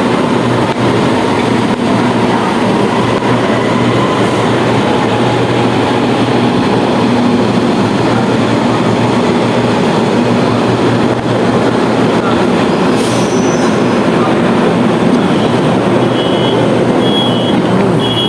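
Light-rail (LRT) train running, a steady loud rumble with a faint motor whine. A few short high beeps sound near the end.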